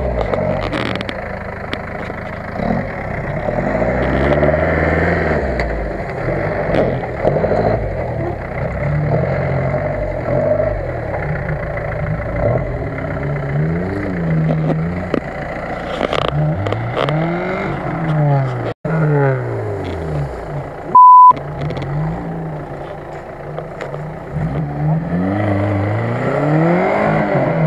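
Off-road 4x4 engines revving up and down again and again under load as the vehicles crawl through rough ground. About two-thirds of the way through, a short, loud, steady beep cuts in.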